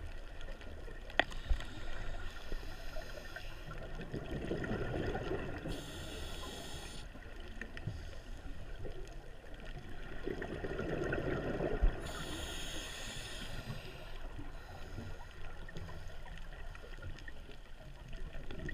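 Scuba diver breathing through a regulator, heard underwater: each breath in hisses, and twice a gush of exhaled bubbles rushes and gurgles past. Two sharp knocks, one about a second in and one near the middle.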